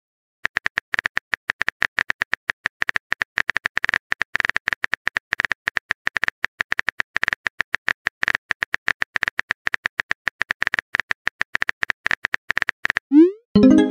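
Rapid clicking of a phone keyboard typing sound effect, several taps a second with a sharp bright tick to each, as a text message is typed letter by letter. The typing stops about a second before the end, followed by a short rising blip as the message is sent.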